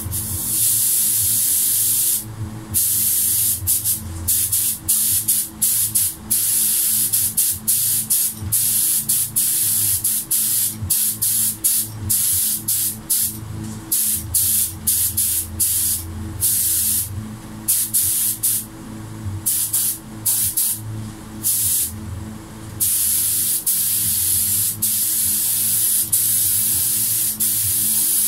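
Compressed-air gravity-feed spray gun hissing as it lays clear coat on a carbon-fiber part. There is a steady pass for about two seconds, then many short trigger pulls through the middle, then a long unbroken pass near the end. A low steady hum runs underneath.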